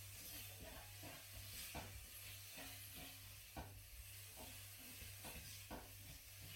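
Chicken pieces sizzling faintly in a wok while being stirred, with scattered light knocks of the utensil against the pan.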